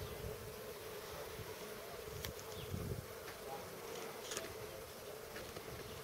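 Bees buzzing in a steady, even hum, with a few faint clicks.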